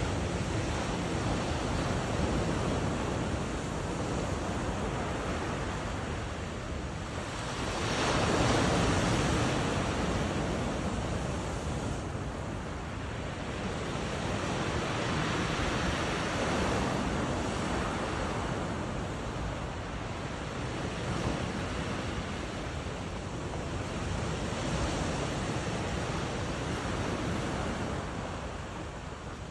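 Sea waves washing onto the shore in slow swells, the largest about eight seconds in, with wind buffeting the microphone.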